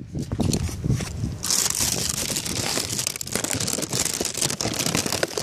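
Handling noise on a phone's microphone: rustling and scraping that turns into a dense, crackly hiss about a second and a half in, with a sharp knock at the end.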